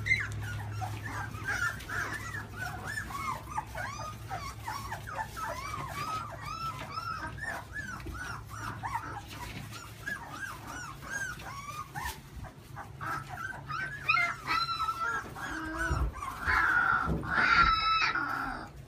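A litter of young Australian shepherd puppies whimpering and squeaking, many short rising-and-falling cries overlapping one another, with louder cries near the end.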